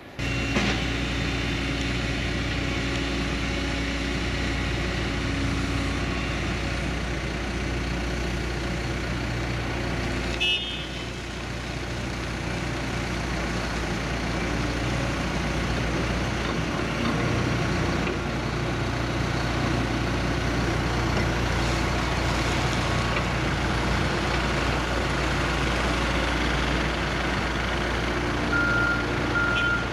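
Diesel engine of heavy construction machinery running steadily at a building site. Near the end a reversing alarm starts beeping in evenly spaced pulses.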